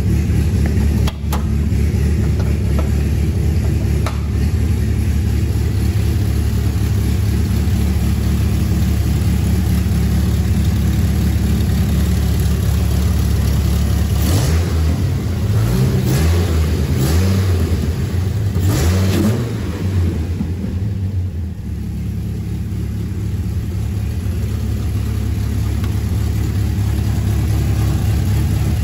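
Dodge Viper SRT-10's 8.3-litre V10 idling, then revved several short times in quick succession about halfway through by hand at the throttle linkage, before settling back to a steady idle.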